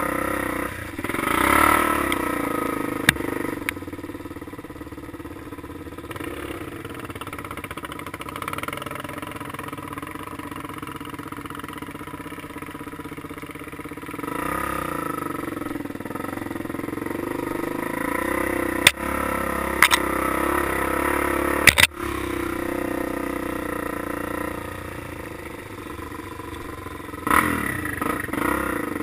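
Off-road vehicle engine running under the rider, revving up and easing off over the trail, with wind rush on the microphone. There are sharp knocks once early on and a few times later, as the machine rides over bumps.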